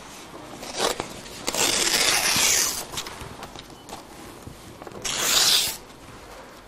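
Sheets of paper being handled and rustled in several bursts: a brief one about a second in, a longer rustle of over a second soon after, and another about five seconds in.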